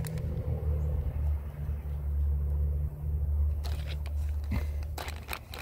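A clear plastic bag crinkling and rustling as it is handled, in a quick run of crackles starting about three and a half seconds in, over a steady low rumble.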